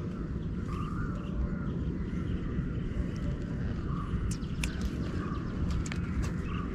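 Birds calling repeatedly in short calls over a steady low rumble, with a few sharp ticks in the second half.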